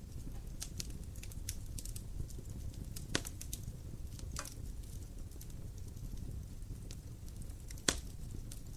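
Wood fire crackling: scattered sharp pops and snaps over a steady low rush, with two louder pops, one about three seconds in and one near the end.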